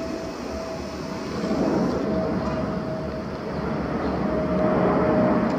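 Four-engine Airbus A340 jet airliner passing low overhead on approach. Its engine noise has a steady tone running through it and grows slowly louder.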